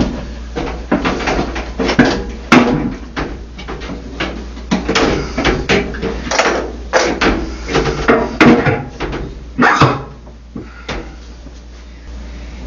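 Irregular knocks, clunks and scrapes as a Samsung washer's inner drum is handled and set back into its outer tub. There are sharper bangs about two and a half seconds in and again a little after eight seconds, and it quietens near the end.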